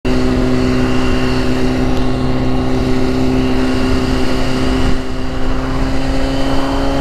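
Motorcycle engine running at a steady cruising speed while being ridden, over a low rumble; its pitch rises slightly near the end.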